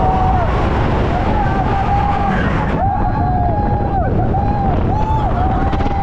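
Expedition Everest roller coaster train running along its track, a steady heavy rumble with wind buffeting the microphone. Over it come repeated short, high yells from the riders.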